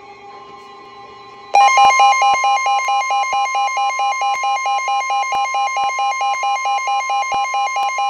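Midland weather radio going into alert for a severe thunderstorm warning: about a second and a half in, a loud steady NOAA Weather Radio warning tone starts together with a pulsing electronic beep, about four pulses a second. Before that there are only faint steady tones.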